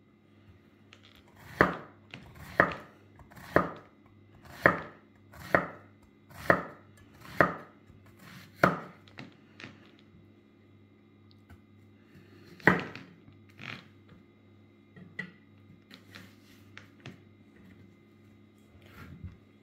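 Chef's knife slicing a zucchini into thin rounds on a wooden cutting board: the blade knocks the board about once a second, eight times in a row, then twice more after a pause, followed by a few lighter taps.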